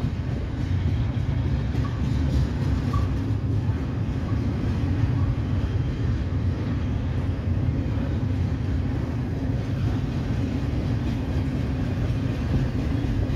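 Double-stack intermodal container train passing: the steady low rumble of well cars rolling along the rails.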